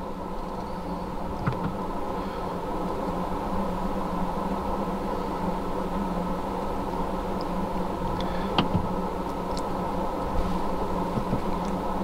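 Steady hum inside a stationary BMW M135i's cabin, with light clicks about a second and a half in and again past eight seconds.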